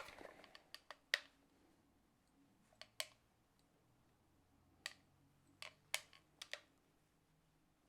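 Faint, sharp clicks, some in close pairs, from the trigger of a Zerostat anti-static gun being squeezed and released over a vinyl record to neutralise static.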